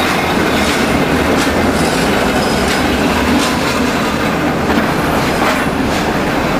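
ALCO S2 diesel switcher locomotive passing close by, its turbocharged six-cylinder engine running steadily with a clatter of wheels clicking over rail joints.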